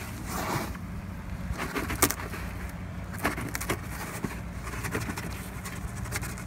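Sand and sand fleas being emptied from a styrofoam cooler into a fine-mesh fishing net: a short rush of pouring sand about half a second in, then scattered light clicks and taps, over a steady low hum.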